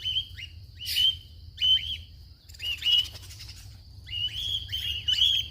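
Cockatiels giving repeated short, high contact calls, each one dropping in pitch at the end, in a quick, irregular series.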